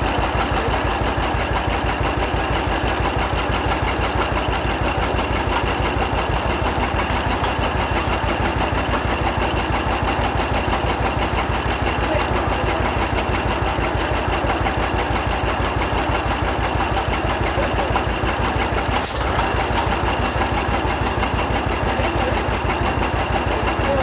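1936 John Deere D tractor's two-cylinder engine running steadily with an even, fast beat, after more than 25 years without running. There is a brief clatter about three-quarters of the way through.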